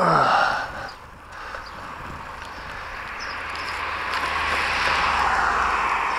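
A car approaching and passing on the road, its tyre and engine noise swelling over several seconds. At the very start there is a short, loud sound that drops sharply in pitch.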